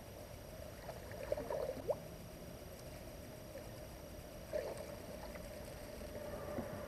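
Hooked fish splashing at the water's surface as it is reeled in to the bank: a cluster of short splashes a little over a second in and another near the middle, over a faint steady hum.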